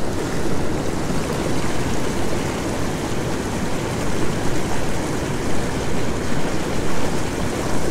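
Steady rush of turbulent water from a warm-water outflow, churning and foaming as it pours past.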